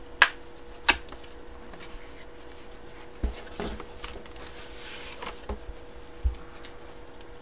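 Cardboard boxes being handled: two sharp clicks or taps within the first second, then light scraping and a few soft thumps as the box is lifted out and set down. A faint steady hum runs underneath.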